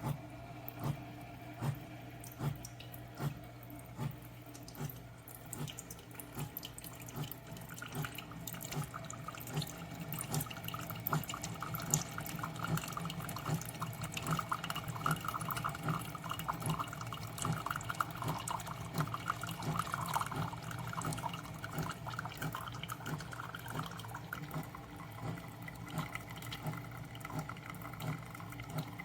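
SIFENE single-serve coffee brewer running a brew cycle: its pump hums with a regular pulse while hot water streams and drips into the cup. The liquid sound swells through the middle and eases off near the end.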